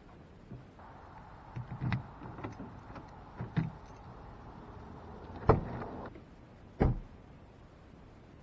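Clicks and knocks of someone settling into a car and handling keys and door, a string of separate clicks with two sharp thumps, about five and a half and seven seconds in, the loudest.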